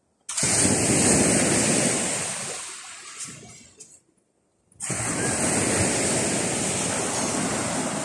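Baltic Sea surf washing onto a sandy beach: a steady rushing hiss. It fades and drops to silence about four seconds in, then starts again.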